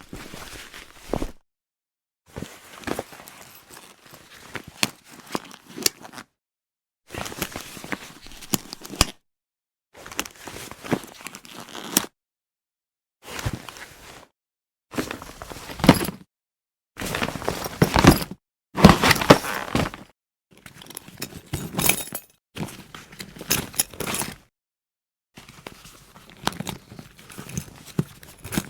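A run of separate travel bag sound effects, each a second or two long with dead silence between them: bag handling, zipping, knocks and thuds as the bag is opened, struck and set down.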